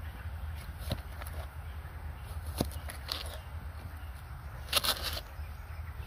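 Large kitchen knife slicing garlic cloves on a leaf: scattered short knocks of the blade through the clove onto the leaf, the loudest a quick pair about five seconds in, over a steady low rumble.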